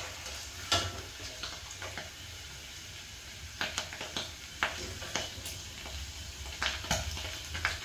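Steel spoon clinking and scraping against a stainless steel pan, a dozen or so sharp knocks at irregular intervals, as fried paneer cubes are lifted out of hot butter and oil. Under it the oil sizzles faintly.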